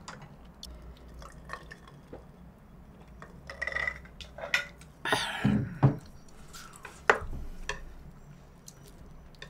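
Eating and drinking sounds at a table: liquid sounds from a plastic cola bottle being handled and drunk from, chewing, and light clicks of chopsticks against dishes. The loudest sounds come about five to six seconds in.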